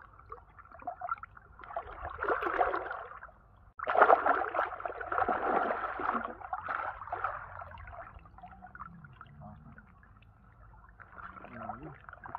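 Seawater splashing and sloshing in bursts, one about two seconds in and a louder stretch from about four to seven seconds, with faint voices in the background.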